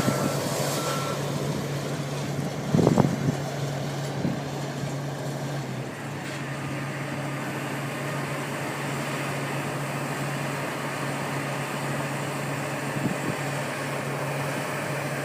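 Heavy crane's engine running steadily, with a reversing alarm beeping a couple of times at the start and a single clunk about three seconds in.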